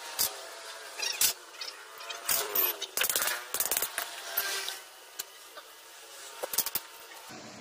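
Metal clicks, knocks and scraping as a Yamaha X-Ride motorcycle starter motor is taken apart by hand, its housing worked loose and pulled off the armature. There are scattered sharp clicks, with a longer stretch of scraping a few seconds in.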